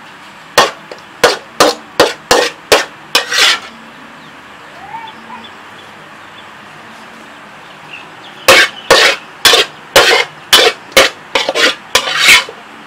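Metal spatula knocking and scraping against a steel wok while scooping out stir-fried beef: a run of about seven sharp strokes ending in a longer scrape, a pause, then about ten more ending the same way.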